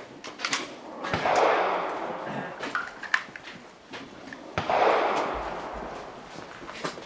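Two gunshots about three and a half seconds apart, each followed by a long rolling echo that fades over a second or so, with a few sharp clicks between them.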